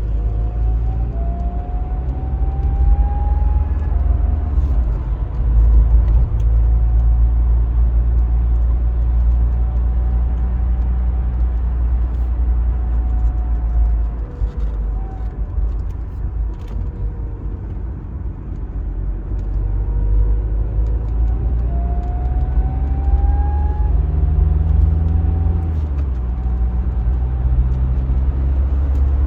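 2009 BMW 118d's four-cylinder diesel engine pulling under acceleration, a heavy low rumble with a thin tone rising in pitch over it twice: the strange noise the car makes when accelerating.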